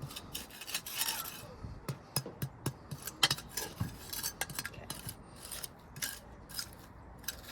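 Irregular small clicks, scrapes and clinks of hand work in soil among brick pavers as the ground is levelled between the bricks, with a sharper clink about three seconds in.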